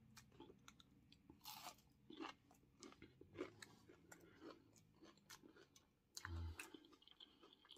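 Faint, close-up chewing of a fried catfish nugget: crunching of the breading with scattered small mouth clicks and smacks.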